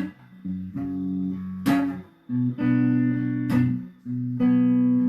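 Guitar strumming slow chords, one strum about every two seconds, each chord left to ring.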